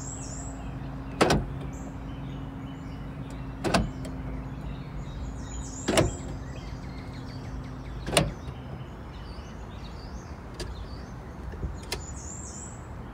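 Central door locks of a Yuki Amy electric car clunking four times, locking and unlocking all doors from the driver's seat, about every two seconds, over a steady low hum that stops soon after the last clunk.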